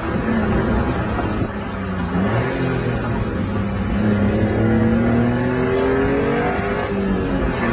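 Honda Beat's small three-cylinder engine heard from inside the cabin while driving: the revs drop about a second and a half in, climb steadily for a few seconds, then ease off near the end, over a low rumble of road noise.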